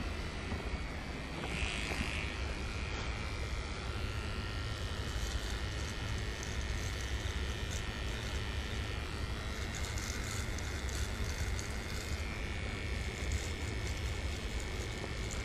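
Cordless T-blade hair trimmer running steadily as it is drawn over a man's cheek and jaw, cutting his beard.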